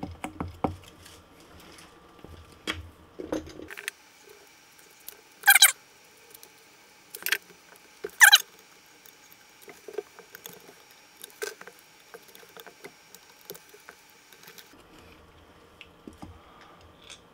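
Hands handling small pieces of hook-and-loop strip and double-sided tape on a 3D-printed plastic housing: scattered light clicks and taps, with two short, louder rasps about five and a half and eight seconds in.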